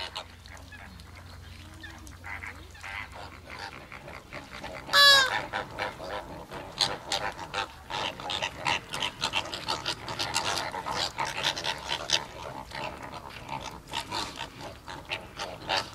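A flock of greater flamingos calling, a dense, continuous chatter of goose-like honks. One louder call stands out about five seconds in, and the calling grows busier after it.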